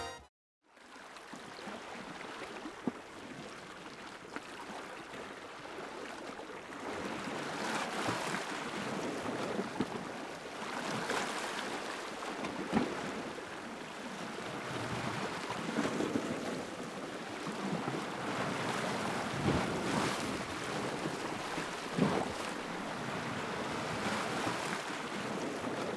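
Sea waves washing and breaking against a rocky shore, starting a moment in: a steady surf hiss that swells every few seconds.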